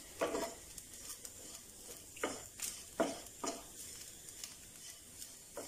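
Wooden spatula stirring grated coconut as it roasts in a non-stick pan, with a few separate scraping strokes over a faint sizzle.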